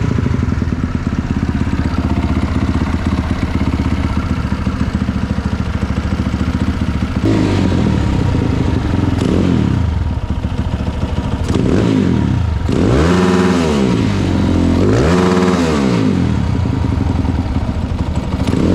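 Supermoto motorcycle engine running on a newly fitted aftermarket CDI, being test-run: it idles steadily, then from about seven seconds in is revved up and down several times, two of the revs going higher than the rest.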